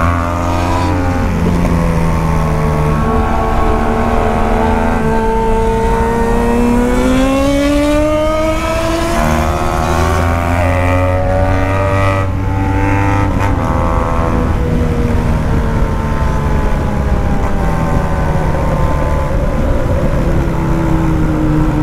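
BMW R1200 GS boxer-twin motorcycle engine under way, the revs climbing and then dropping several times as the rider accelerates and shifts gear.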